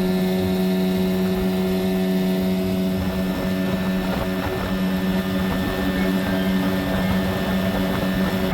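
Boat motor running at a steady speed, a constant droning hum.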